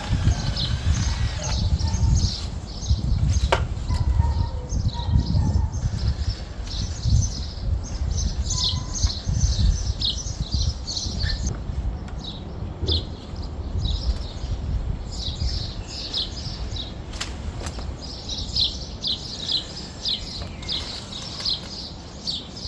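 Small birds chirping and twittering, many quick repeated high calls throughout, over a strong uneven low rumble and a couple of sharp clicks.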